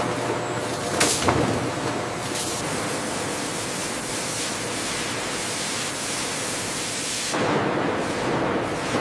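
Steady rush of water from the tamarind pod washing line, with a couple of knocks about a second in. About seven and a half seconds in the sound changes, with less hiss and a coarser, lower splashing.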